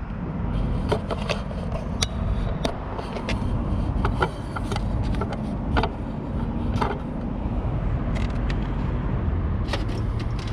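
Small metallic clicks, taps and scrapes of hand tools and parts being handled during work on an AC condenser's fan motor and capacitor wiring, over a steady low rumble.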